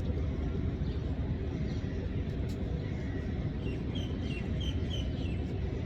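Steady low outdoor rumble of city and waterfront ambience, with a few faint, short high chirps about two-thirds of the way through.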